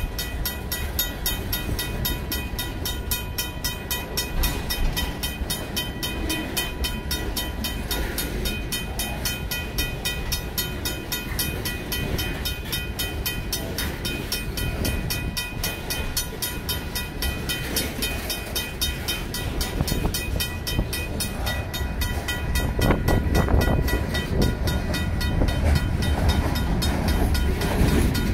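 Freight cars rolling past a grade crossing: a steady rumble and clatter of wheels on rail, under the rapid, even ringing of a RACO mechanical crossing bell. The wheel clatter grows louder near the end.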